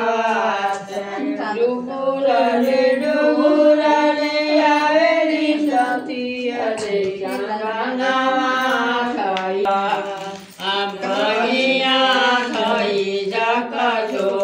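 A group of women singing a devotional folk song to the goddess (devi geet) in long, drawn-out notes.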